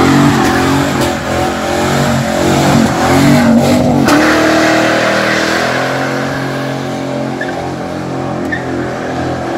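5-litre V8 car doing a burnout, revving hard at high revs with tyres skidding. The revs drop about four seconds in, then hold steadier as the sound eases off a little.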